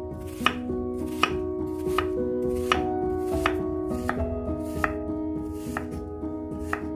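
A knife chopping food on a cutting board in steady sharp strokes, about one every three quarters of a second, over soft background music.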